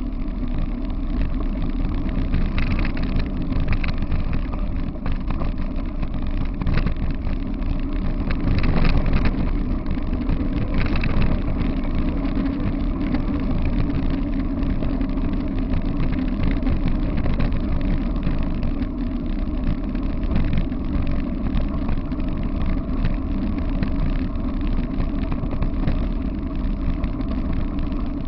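Steady wind rumble on a front-mounted camera's microphone and the wheels of a dog-pulled rig rolling fast over a gravel path, with a few clattering knocks from bumps in the first ten seconds or so.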